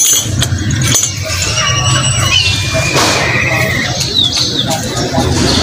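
Birds chirping, with short trills and quick rising-and-falling notes, over a steady low hum.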